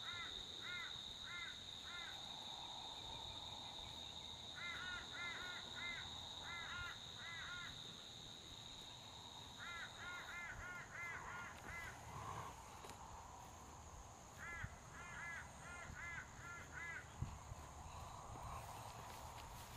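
Crow cawing in four runs of four to six caws each, spaced a few seconds apart. A steady high-pitched drone sounds beneath the first half and stops about halfway through.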